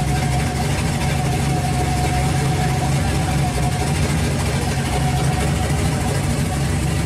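Hot rod V8 engine idling steadily, with no revving. A thin steady whine sits above the exhaust and fades about four seconds in.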